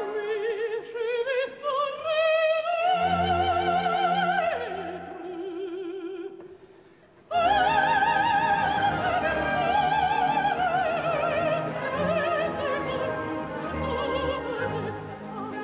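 Operatic mezzo-soprano singing in French with a dark, mellow, rich tone and a wide vibrato, over a sustained orchestra. About six seconds in, the sound falls away for a moment, then the voice comes back loud on a high held phrase.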